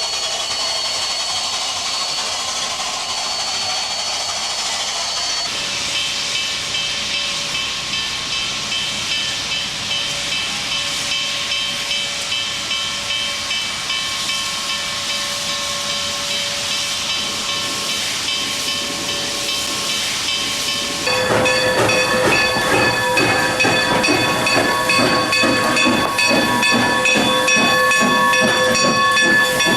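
Dubbed steam locomotive sound: steam hissing, with steady whistle-like tones held above it. About 21 seconds in it gets louder, with more tones and a quick rhythmic beat.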